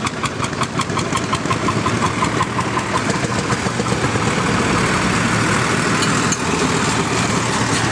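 Tractor engines running as several tractors drive past one after another. An old tractor's engine beats out a slow, regular thump about six times a second, fading over the first two seconds, then gives way to the steadier, louder running of a more modern tractor.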